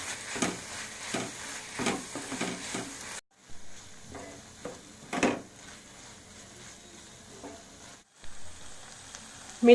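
Spatula stirring baby corn with ground coriander and pepper in a hot kadai: a light sizzle with irregular scrapes and taps of the spatula on the pan.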